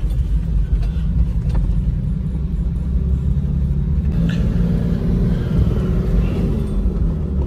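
Car driving on a rough unpaved road, heard from inside the cabin: a steady low rumble of engine and tyres.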